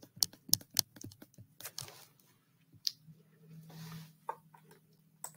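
Irregular sharp taps and clicks of a stylus on a tablet screen as someone writes by hand.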